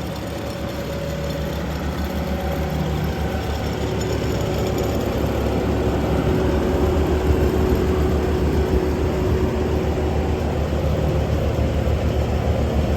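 A Bobcat T740 tracked skid steer loader's four-cylinder turbo-diesel engine running steadily, growing gradually louder over the first several seconds.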